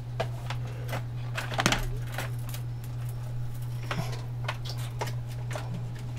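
Scattered clicks and light knocks of things being handled and set down on a workbench, bunched about a second and a half in and again at four seconds, over a steady low hum.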